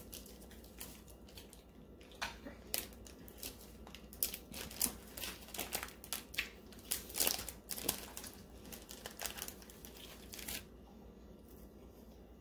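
Boiled shellfish shells being cracked and peeled apart by hand: an irregular run of sharp crackling clicks and tearing that dies away near the end.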